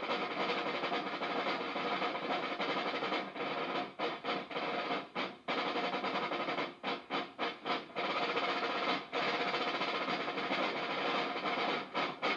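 Several rope-tension field snare drums played together, a dense continuous drumming broken by a handful of quick stops around four to five seconds in and again around seven seconds in.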